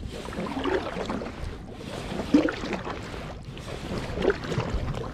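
Kayak paddle strokes: the blade dipping and pulling through calm water with a swish and swirl, three strokes about a second and a half apart.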